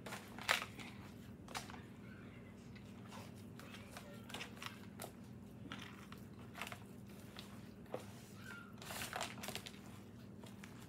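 Hands mixing crumbled cornbread dressing in a disposable aluminium foil pan: irregular crinkles, crunches and rustles of the foil and crumbs, loudest near the start and again about nine seconds in, over a steady low hum.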